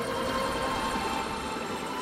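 Steady engine and road noise inside a car driving on a snow-covered road.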